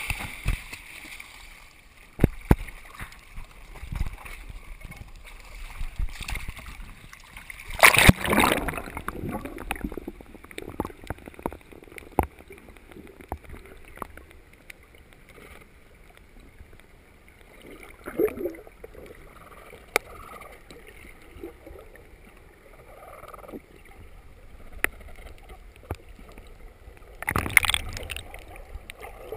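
Muffled water sounds recorded with the microphone underwater while swimming: gurgling and sloshing with scattered sharp clicks and knocks. Two louder rushes of splashing water come about eight seconds in and near the end.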